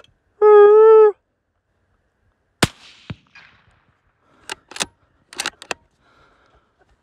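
A loud, steady call note lasting under a second, then about two seconds later a single sharp rifle shot, followed by a few quicker sharp clicks.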